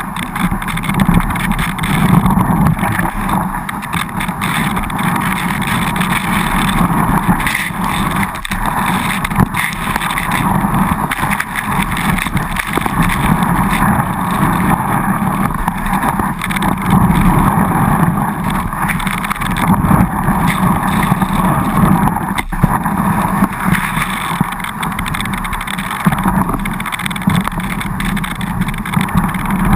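Skis running over snow at speed, with wind rushing past a GoPro mounted low by the skis: a loud, continuous rumbling rush, with an occasional sharp knock.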